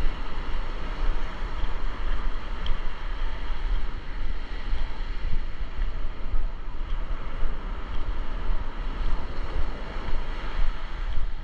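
Ocean surf washing onto the beach, a steady rush with wind buffeting the microphone in a gusting low rumble.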